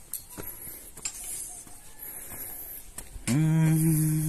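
Light footsteps tapping on concrete steps, then about three seconds in a loud, long call held on one steady pitch.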